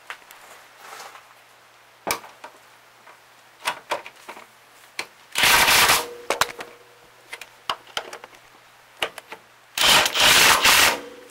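Two bursts from a power tool, a short one a little past the middle and a longer one of about a second near the end, each with a faint steady hum under a dense rattle. Scattered clicks and knocks of hand work on metal parts fall between them.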